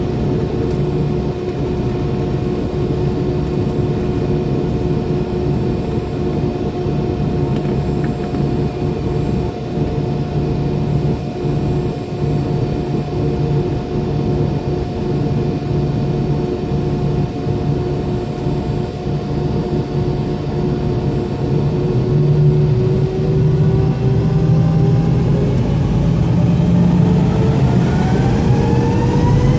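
MD-90's IAE V2500 turbofan engines heard from inside the cabin, running at a steady idle whine over a low rumble. A few seconds before the end, the whine starts rising in pitch and growing louder as the engines spool up for the takeoff roll.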